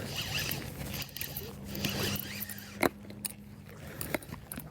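Fishing reel whirring and clicking as a hooked fish is reeled in and fought. A steady low hum runs through the middle, and there is one sharp click about three seconds in.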